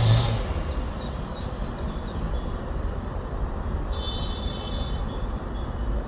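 Outdoor field-recording ambience: a steady low rumble, with a few faint short high chirps about a second in and a thin high trilling tone around four to five seconds in.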